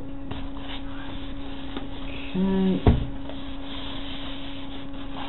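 Polystyrene foam packing blocks being handled and pulled apart, with a short steady-pitched sound about two and a half seconds in and a sharp knock just after it. A steady low hum runs underneath.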